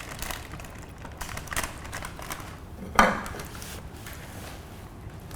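Faint scattered clicks and taps, then one sharp clink about three seconds in: a small hard object knocking against a dish.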